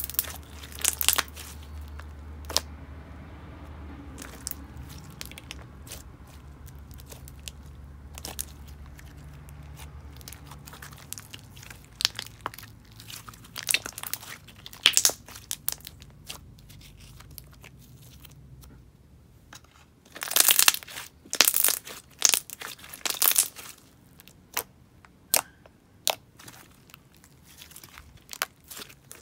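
Thick slime squished and stretched by hand, giving off sticky clicking pops and crackles, with louder clusters of pops about halfway through and again a few seconds later.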